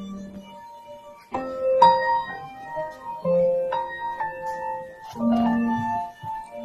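Piano music: a slow melody of sustained notes, with new notes struck every second or two.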